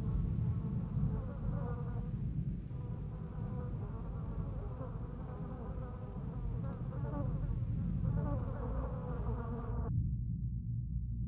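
Insect-like buzzing over a steady low rumble; the buzzing cuts off suddenly near the end, leaving only the low rumble.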